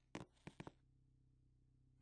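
Three quick, sharp taps in the first second that then stop, followed by near silence with a faint low hum.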